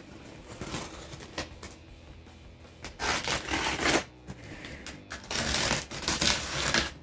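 A cardboard shipping box and its packing being opened by hand: scraping and rustling, with a few light clicks, then two louder rustling stretches about three and five seconds in.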